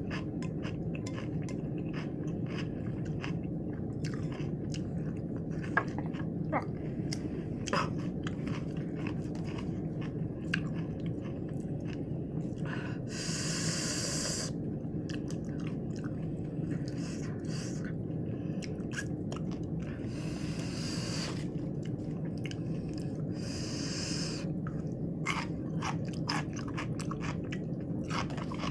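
Close-up chewing of crunchy lettuce wraps with raw cucumber and pepper slices: many crisp crunches and bites, over a steady low hum. Three brief hissing noises, each about a second long, come in the second half.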